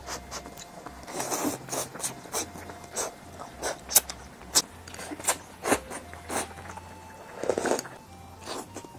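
Eating egg noodles up close: a string of short mouth clicks and chewing smacks, with two longer slurps of noodles, about a second and a half in and near the end.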